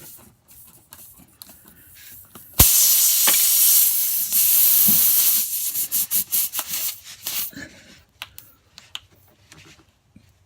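Air hissing out of a punctured tire through the open screw hole, starting suddenly with a sharp click about two and a half seconds in. It is loud and steady for about three seconds, then comes in shorter, broken spurts before dying away.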